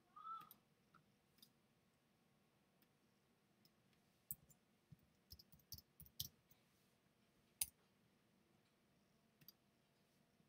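Faint computer keyboard keystrokes and mouse clicks, a quick run of sharp clicks in the middle as a word is typed, over near silence. A brief high-pitched squeak at the very start.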